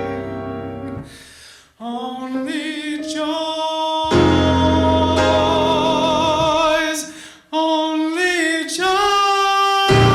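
Male soloist singing long held notes with vibrato over piano accompaniment. A chord fades away at the start, the voice comes in about two seconds in, breaks briefly past the middle, then climbs to a held note near the end.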